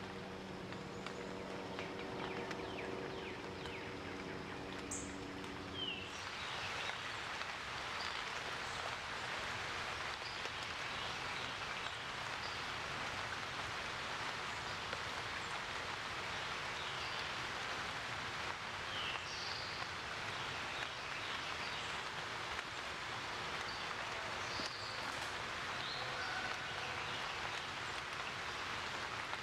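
Outdoor background noise: a low steady hum that stops suddenly about six seconds in, then an even hiss with a few faint high chirps.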